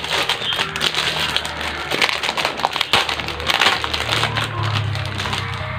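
Packaging crinkling and rustling as it is handled, over background music.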